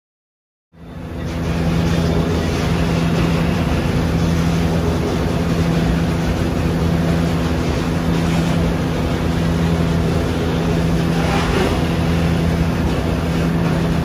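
Heavy log loader's diesel engine and hydraulics running steadily: a loud, even drone with a constant low tone, cutting in abruptly about a second in.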